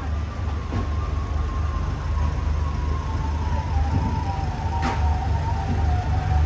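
Road traffic: a steady low rumble of engines from slow-moving vans and lorries, with a thin high tone drifting slowly down in pitch and a brief sharp click about five seconds in.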